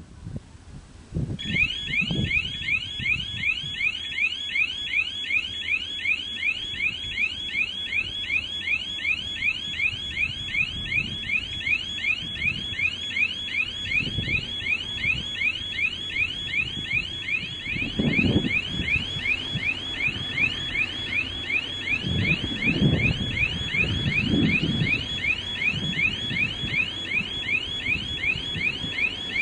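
Railway level-crossing warning signal sounding a rapid electronic chirp that repeats two to three times a second as a train approaches. A low rumble from the oncoming diesel locomotives swells underneath, strongest in the second half.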